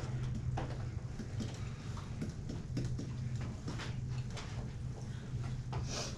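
A pen tapping and sliding on an interactive whiteboard as an equation is written: a scatter of small, irregular clicks and ticks over a steady low room hum.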